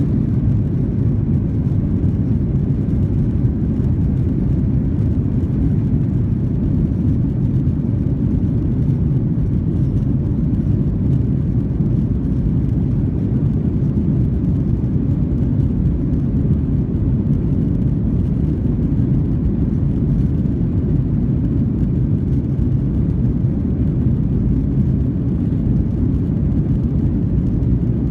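Boeing 737-900 cabin noise: the CFM56-7B jet engines and the airframe making a steady low rumble heard inside the cabin while the plane taxis on the ground, with no spool-up of the engines.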